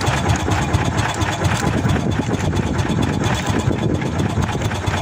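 Small fishing boat's engine running steadily, a continuous low rumble with a fast, even pulse.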